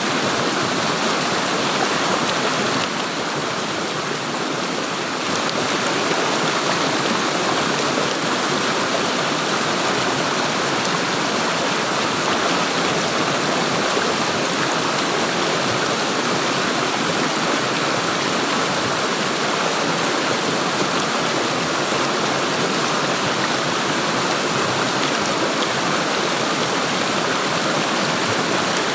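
Water flowing and gurgling steadily, like a small stream running over stones, dipping slightly in loudness about three seconds in.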